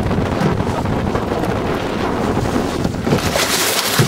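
Wind buffeting the microphone on an open boat at sea, a steady rough rumble, with a louder hissing rush about three seconds in that lasts about a second.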